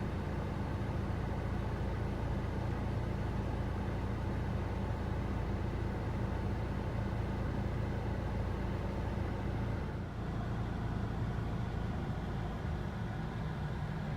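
Steady running noise of a Mitsubishi Delica D:5 with its air conditioning on, a low engine hum under a broad rush of air and road noise, dipping briefly about ten seconds in.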